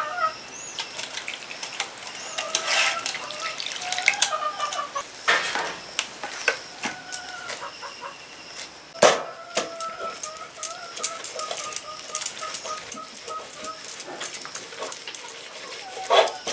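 Wet, sticky squelching and crackling of ripe palmyra palm fruit pulp being pulled from its fibres and rubbed by hand against a perforated steel colander, with sharp clicks, the loudest about 5 and 9 seconds in. Intermittent pitched calls sound behind it, one held for several seconds near the middle.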